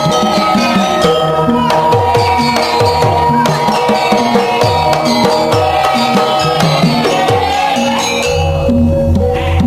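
Festive folk-style music: hand drums played in quick strokes that slide down in pitch, under long held melody notes. About eight seconds in, a deep steady bass comes in.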